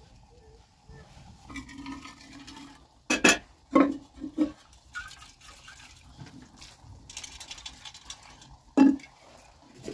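Metal vessels and containers knocked and clinked together as they are handled: a quick cluster of sharp knocks about three to four seconds in, a light rattle, and one more sharp knock near the end.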